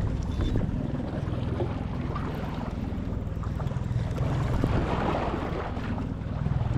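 Fishing boat's motor running steadily at trolling speed, a low drone, with wind buffeting the microphone and water noise around the hull.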